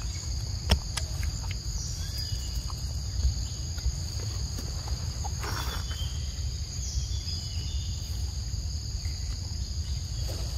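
Steady insect chorus, a shrill drone in two high tones, over a low rumble. A few sharp clicks and a short noisy burst about five and a half seconds in come from the macaque eating the mango.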